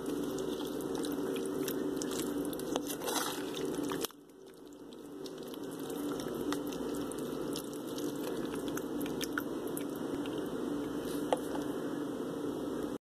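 A spoon stirring saucy chicken fajita filling in a crock pot: wet squishing with small clicks and scrapes, over a steady low hum. The sound drops away briefly about four seconds in.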